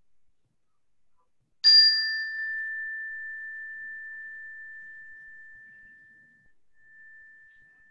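A mindfulness chime struck once, about a second and a half in, ringing with one clear high tone that fades slowly and is still sounding at the end. A brighter, higher overtone dies away within the first second of the ring.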